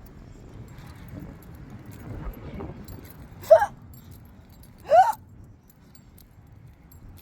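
A woman's hiccups: two short, high-pitched hiccups about a second and a half apart, part of a long bout of uncontrollable hiccup spasms.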